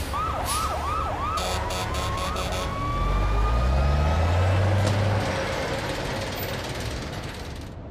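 Cartoon police siren warbling in about five quick cycles, then a vehicle engine rising in pitch as it speeds up.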